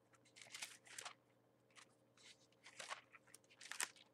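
Faint paper rustling as Bible pages are leafed through, a series of short dry rustles to find a passage.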